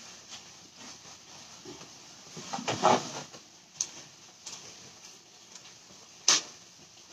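Paper towels being pulled from a roll and torn off, a short rustling tear about two and a half seconds in, followed by a few light handling ticks and one sharp tap near the end.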